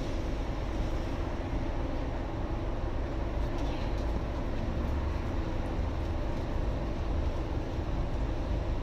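Scania N280UD double-decker bus's five-cylinder diesel engine idling steadily at a stop, heard from inside the lower deck by the front doors. A few faint high ticks come about three and a half seconds in.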